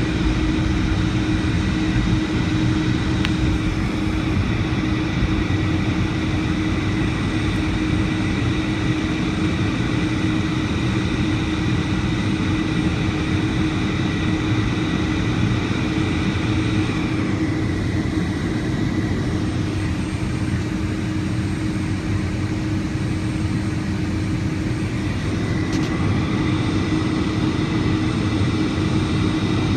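Steady cabin noise of a Boeing 757-200's jet engines running before takeoff, heard from inside the passenger cabin: an even rush with a constant hum and a high whine that holds level throughout.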